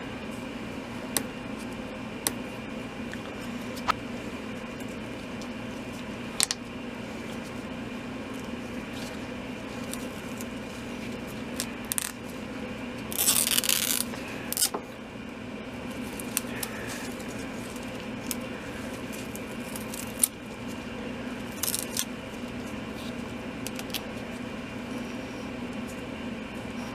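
Tape being unwrapped and peeled off a hatchet handle: scattered small clicks and handling taps, with a longer ripping burst about halfway through and a shorter one later, over a steady low hum.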